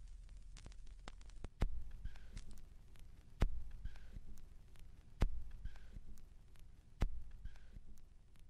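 Vinyl record surface noise: fine crackle and pops over a low rumble, and from about a second and a half in, a heavy thump about every 1.8 seconds with a fainter swish after each. The spacing matches one turn of a record at 33⅓ rpm, as a stylus makes when riding the run-out groove of an LP.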